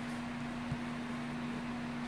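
Steady low electrical-sounding hum and hiss of room noise, with one faint click about two-thirds of a second in.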